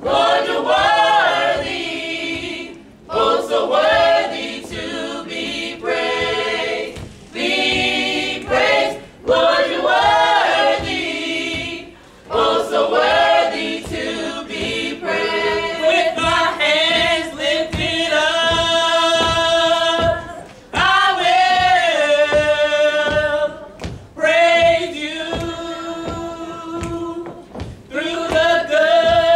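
Small mixed-voice gospel choir singing a cappella, phrases broken by short pauses, with several long held notes in the second half.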